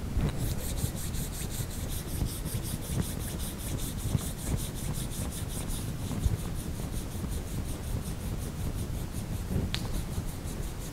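Palms rubbed briskly together in quick, even back-and-forth strokes, a dry swishing that softens after about six seconds.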